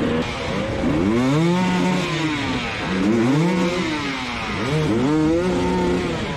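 Dirt bike engine revving, its pitch rising and falling three times as the throttle is opened and closed.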